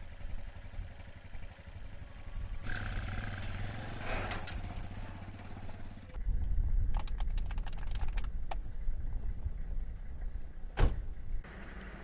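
Engine of a Dayun cargo motor-tricycle running, getting louder about halfway through, with a burst of rattling clicks and one sharp knock near the end.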